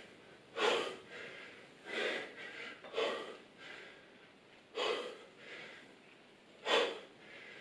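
A man breathing out hard in short, sharp breaths, one with each rep of a dumbbell thruster, five times about one to two seconds apart.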